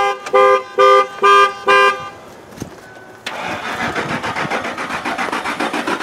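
A car horn honks in quick repeated blasts, about two and a half a second, as a car alarm pulses it, and stops about two seconds in. About a second later the 2006 Lincoln LS's 3.9 litre V8 cranks on the starter with a steady pulsing churn and does not catch: still a no start.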